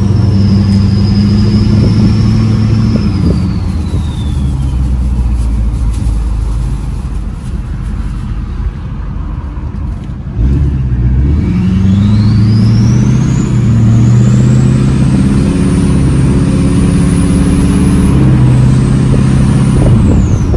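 LLY Duramax 6.6 L V8 diesel with a 64mm turbo, accelerating hard, heard from inside the cab. The high turbo whistle falls away about four seconds in as the throttle eases. About ten seconds in the truck pulls hard again, and the whistle climbs steeply to a jet-like shriek while the engine note steps through gears, then drops near the end.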